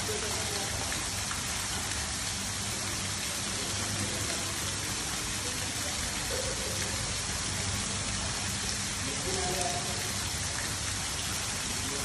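Water from a running fountain falling and splashing back into its pool, a steady rain-like hiss of spray with no pauses.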